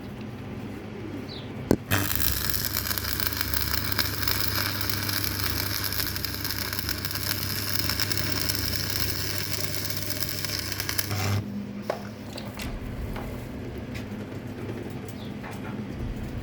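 Electric arc welding: a click as the arc strikes, then about nine seconds of steady arc hiss and crackle over a low mains hum, cutting off suddenly when the arc is broken.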